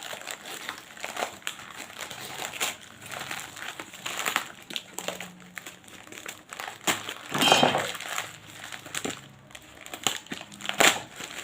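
Packaging being crinkled and torn open by hand as a new plate is unwrapped: irregular rustling and crackling, loudest about two thirds of the way through.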